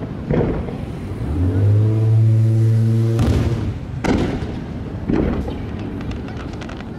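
Aerial firework shells bursting: three booms, the first just after the start and two more about a second apart past the middle, followed by a faint crackle. Between the first and second boom a low, steady horn sounds for about two seconds.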